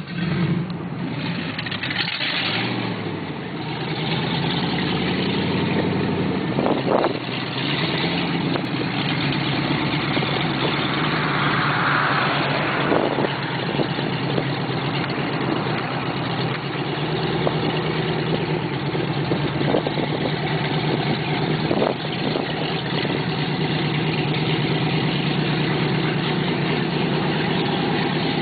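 Exhaust of an untuned 426 V8 in a Jeep buggy, heard from a car following behind. Its pitch rises and falls with the throttle in the first several seconds, then it settles into a steady run.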